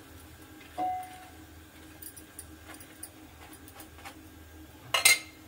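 Kitchen handling sounds while a paratha is pressed and turned by hand in a frying pan: faint scattered clinks and taps. About a second in there is a brief knock with a short ring, and near the end a loud clank that rings on briefly.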